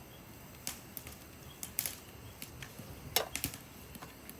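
Dry firewood crackling as it burns: sparse, irregular sharp pops and snaps over a faint hiss, with the loudest cluster of pops a little past three seconds in.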